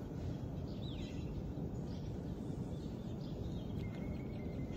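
Outdoor ambience: a steady low rumble with a few faint bird chirps scattered through it.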